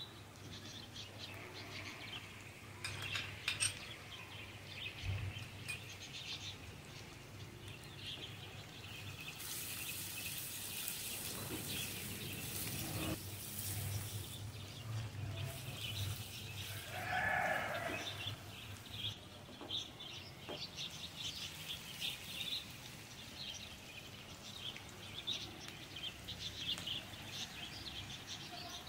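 Chopped onion, capsicum and carrot being stir-fried in oil in a nonstick wok, with a spatula scraping through them, louder for a few seconds a third of the way in. Short chirps of birds sound in the background throughout.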